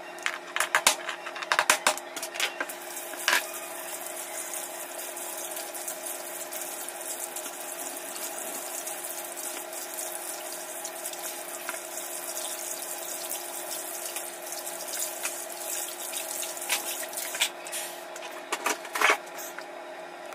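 Kitchen tap running steadily into a sink while hands wash under the stream, with a few sharp knocks and clatters near the start and again near the end.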